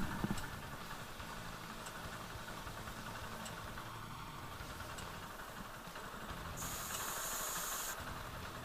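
Motorcycle engine idling steadily and faintly, with a burst of high hiss for about a second and a half near the end.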